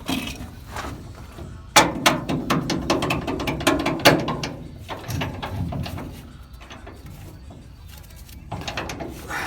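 Hand ratchet wrench clicking while turning a bolt, in a quick run of strokes from about two to four seconds in, with softer clicks later on.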